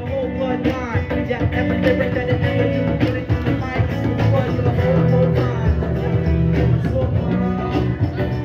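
Live street band playing amplified music, with a steady drum beat under guitar.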